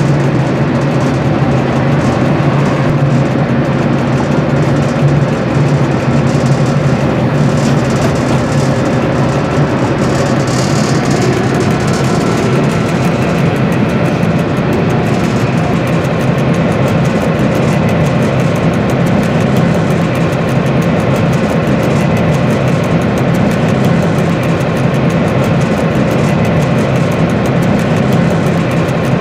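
Dr12 diesel-electric locomotive's engine running steadily under way, heard from inside the cab. There is a short hiss about ten seconds in.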